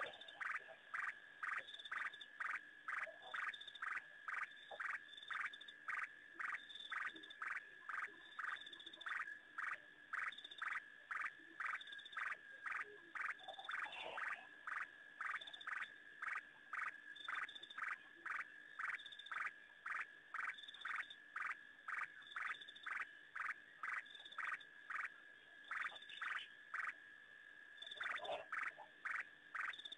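A frog calling over and over, a short note repeated steadily about twice a second through the night-time waterhole ambience. A few louder, broader noises break in about halfway through and again near the end.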